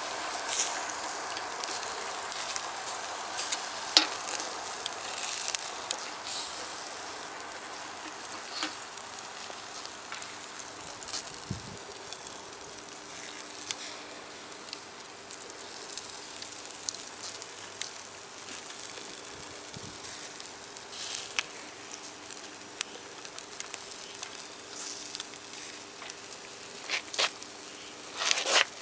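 Wood fire crackling with a steady sizzling hiss and scattered sharp pops.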